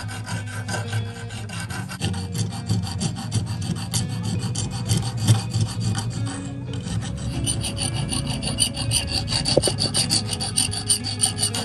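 Hand file rasping across the edge of a 50 euro cent coin ring, whose Nordic gold is a brass-like alloy, in quick, evenly repeated strokes. The strokes break off for a moment a little past the middle and then resume.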